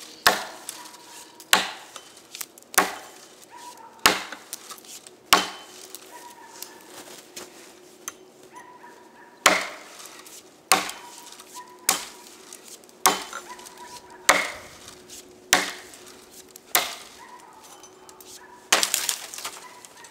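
Rinaldi "American" boy's axe chopping into a fallen beech log: thirteen sharp chops, about one every second and a quarter, with a pause of about four seconds in the middle. The last chop, near the end, is the loudest.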